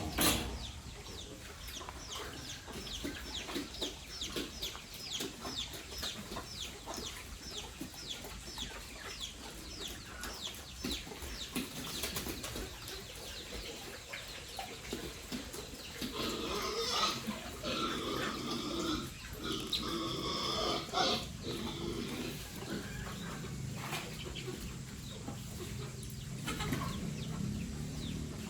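Chickens clucking and calling, with a louder run of calls a little past halfway; a sharp knock right at the start.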